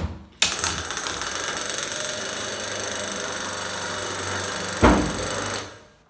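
Homemade battery-powered door alarm going off: its small motor buzzing and rattling steadily for about five seconds, which signals that the door has been opened. A knock at the start and a louder knock about five seconds in, after which the buzzing dies away.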